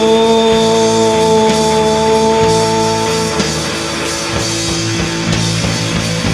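Distorted electric guitar playing grunge-style rock: a held chord that rings steadily, then changes to a lower chord about three and a half seconds in.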